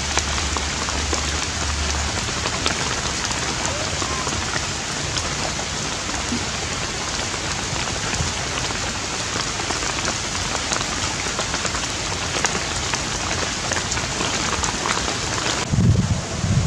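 Steady rain falling, with scattered drops tapping on nearby surfaces. Near the end it cuts to low gusts of wind buffeting the microphone.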